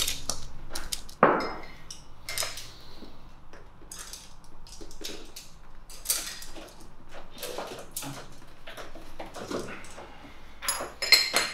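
Wooden paintbrushes clattering and rattling on a wooden floor as they are gathered up by hand, with irregular light knocks throughout. There is a sharp knock about a second in and a cluster of knocks near the end.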